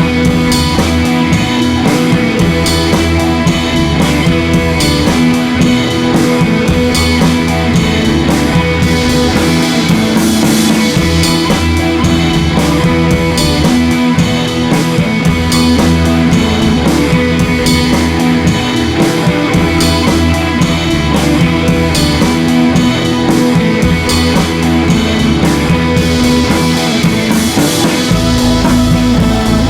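Rock background music with electric guitar and a steady drum-kit beat.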